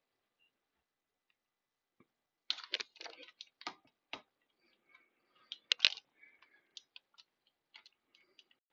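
Handling noise: a scattered run of sharp clicks and small taps, the loudest one just before six seconds in, as a coin capsule and the camera are handled and moved.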